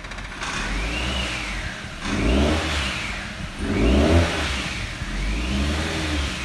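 Ford Mondeo Mk3 2.0 Duratec four-cylinder petrol engine, heard from inside the cabin, revving in about four short blips of the throttle, each rising only a little and falling back. The engine struggles to rev because of a broken, blocked catalytic converter.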